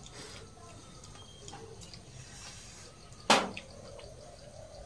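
Quiet sounds of people eating rice and curry with their hands from steel plates, with one sharp click a little over three seconds in.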